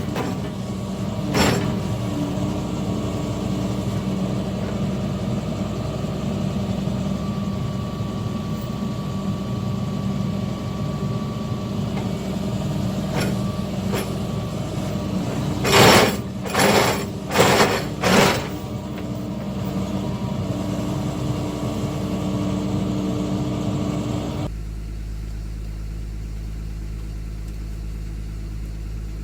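Excavator's diesel engine running steadily, with a knock about a second and a half in and a cluster of four loud knocks a little past halfway, typical of heavy stones being set and struck while laying a stone wall. Near the end the sound switches abruptly to a steadier, lower hum.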